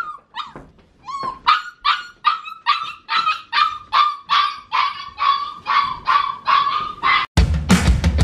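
Puppy shut in a wire crate yipping and crying over and over, short high yelps about three a second, protesting being left alone in the crate. About seven seconds in it cuts off and music with drums begins.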